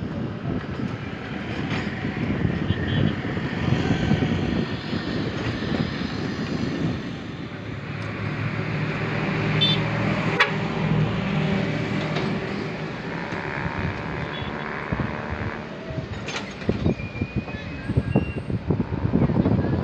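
Excavator diesel engines running steadily under working load during dredging, with a few sharp knocks, one about halfway through and another near the end.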